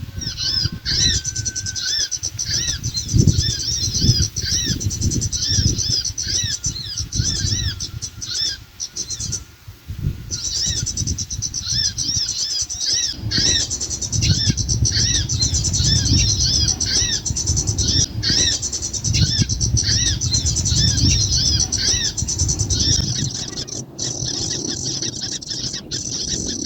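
Bird-trapping lure call: rapid, repeated high chirps with a thin steady whistle behind them, breaking off briefly about ten seconds in, over a low rustling noise.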